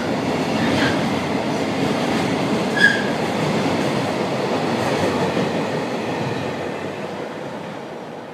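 Freight train's container wagons rolling past close by: a steady rumble and clatter from the wheels on the rails, with a short high squeal about three seconds in. The sound fades over the last two seconds as the end of the train goes by.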